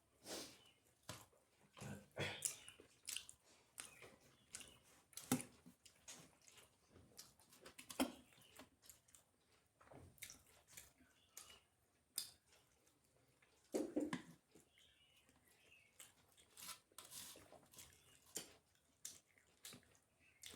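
Quiet eating sounds: chewing and mouth smacks from someone eating roti and paratha with dal and curry. They come as scattered short clicks and brief wet noises, with a few louder ones now and then.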